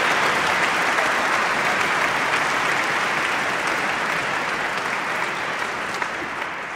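Audience applauding, slowly dying away.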